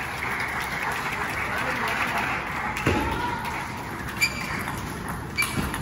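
Table tennis rally: a few sharp clicks of the plastic ball striking paddle and table, the loudest about four seconds in, over a steady murmur of voices in the hall.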